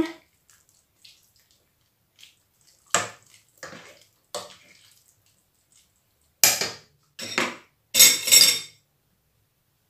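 A cooking utensil scraping and knocking against a stainless steel soup pot while noodle soup is stirred: a few faint clinks, then louder clatters in the last few seconds.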